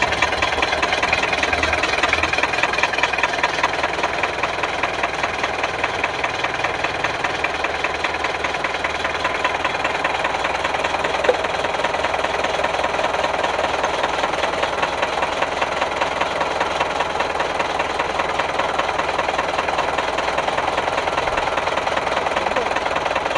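Diesel engine idling with a steady, even clatter.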